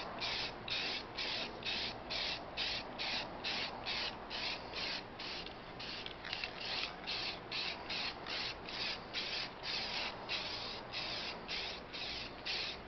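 Aerosol spray-paint can hissing in quick, even pulses, about three a second, as paint is sprayed onto a camp stove's steel case.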